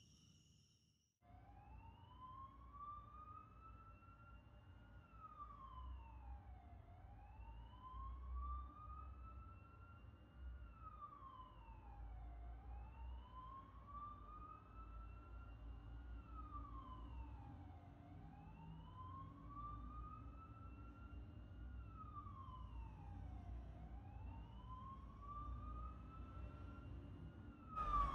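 Faint emergency vehicle siren on a slow wail, starting about a second in: each cycle climbs slowly for about four seconds, then drops quickly, over a low rumble. It grows louder near the end.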